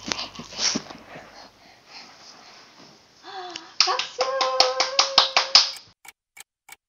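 A baby squealing and babbling, then quick hand-clapping, about five claps a second for a couple of seconds, with a high cheering voice held over it; a few last claps near the end.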